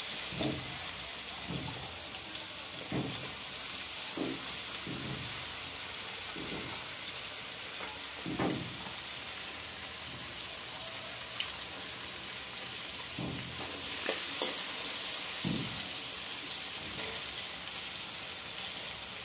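Cubed potatoes frying in butter in an aluminium kadhai, a steady sizzle, with a few soft knocks scattered through it.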